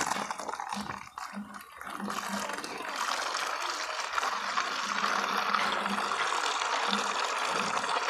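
Water from a hose pouring in a stream into a plastic basin, filling it. The steady splashing builds up about two seconds in and then runs evenly.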